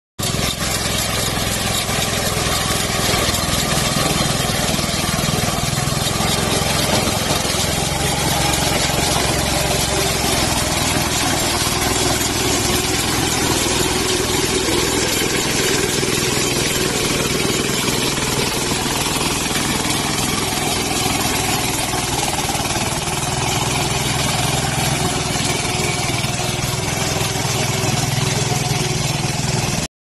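Mini walk-behind corn harvester driven by a single-cylinder diesel engine, running steadily under load as it takes in and strips corn stalks, with a constant mechanical clatter over the engine.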